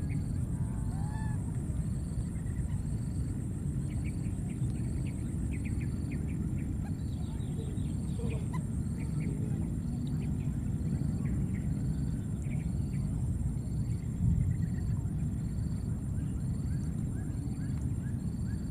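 Outdoor ambience: a steady low rumble with an evenly spaced high chirp repeating about once a second over a thin steady high whine, and scattered short, faint rising squeaks.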